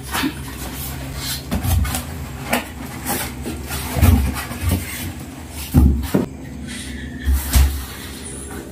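Unpacking and handling noise: a camera-mirror housing and its foam packing being pulled from a cardboard box and handled, with rubbing and four or five dull knocks.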